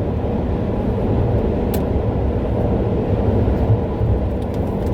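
Steady road and engine rumble of a moving car, heard from inside the cabin, with a brief click about two seconds in.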